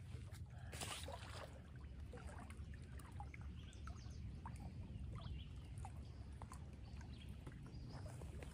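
Wind rumbling on the microphone and small waves lapping against the rocky shore, with a brief splash about a second in as a released crappie is tossed back into the lake.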